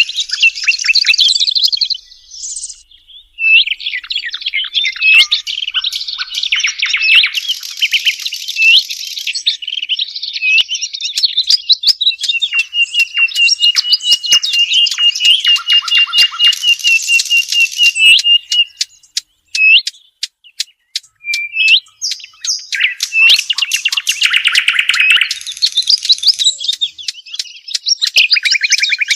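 Song of small songbirds, the birds Arabian bird hunters call shuhaim, fasasi and zaradi: a dense, loud run of chirps, whistled notes and trills, with one long even trill in the middle and rapid chattering notes in the later part.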